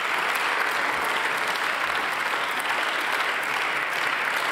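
Members of parliament applauding: many people clapping at once, a steady, even patter of applause.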